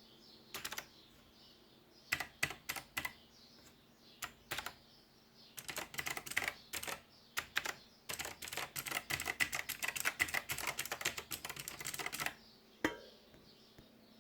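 HP GK320 mechanical keyboard keys being typed on: scattered single keystrokes and short bursts, then a few seconds of fast continuous typing, ending with one last keystroke.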